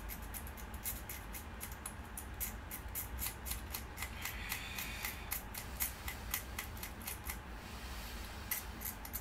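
Quick scratching strokes of a small hand tool on a printed circuit board, about three or four a second, pausing briefly near the end. The board is the cracked circuit board of a toy RC car's remote, and the strokes come as its cracked traces are being worked on for bridging.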